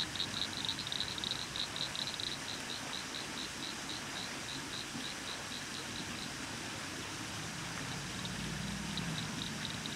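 High-pitched chirping from a small calling animal, evenly repeated at about five chirps a second. It fades out about halfway through and starts up again near the end, over steady background noise.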